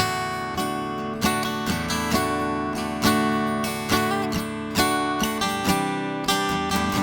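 2013 Martin DC-16 RGTE acoustic guitar, solid Sitka spruce top with solid East Indian rosewood back and sides, being played: a steady run of chords and notes, each attack ringing on into the next.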